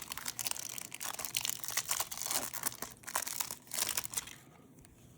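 Plastic trading-card pack wrapper crinkling and crumpling as it is handled, a dense crackle that stops about four seconds in.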